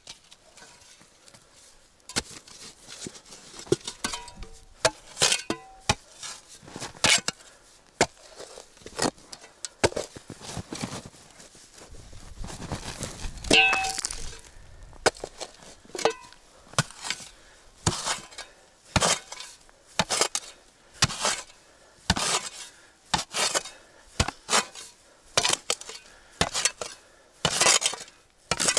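Steel spade chopping into frozen, snowy soil, a strike about every second, faster toward the end. A few strikes clank with a short metallic ring, and around the middle the blade scrapes through loose earth.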